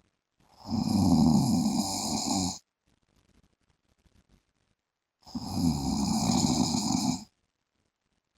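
A man snoring in his sleep: two long snores of about two seconds each, the first about half a second in and the second about five seconds in, with quiet breathing between them.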